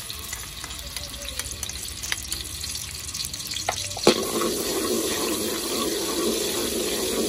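Minced garlic sizzling in hot oil in a metal wok, with a slotted metal spatula clicking and scraping against the pan. About four seconds in the spatula strikes the wok sharply, and the sizzling grows louder as the garlic is stirred.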